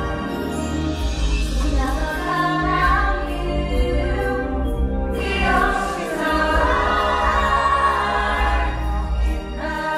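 Music with a choir singing long, held notes over a deep bass.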